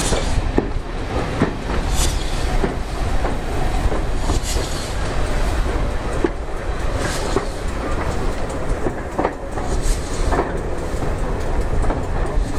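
Railway passenger coach running along the track: a steady low rumble from the wheels, with irregular clicks and knocks as they pass over rail joints.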